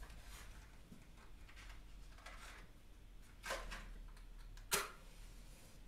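Faint small clicks and handling noises while candles are being lit, with a short scrape about three and a half seconds in and a sharp click about a second later.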